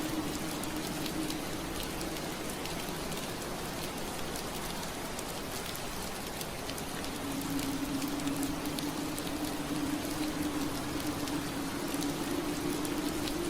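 Steady rain on a window pane, an even hiss dotted with small drop ticks. Under it a low hum fades out about a second in and comes back around seven seconds.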